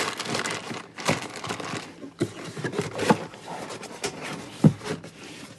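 Packaging rustling and crinkling as cables and accessories are packed back into a box, with a few sharp knocks of parts set down.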